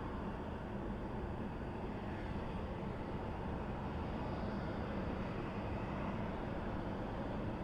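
Steady distant jet airliner engine noise with a faint high whine over a low rumble.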